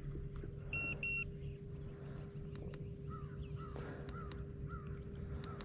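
Two short electronic beeps from the bass boat's fishing electronics about a second in, over a steady thin hum from the bow-mounted electric trolling motor. A run of five faint short chirps and a few light clicks follow in the second half.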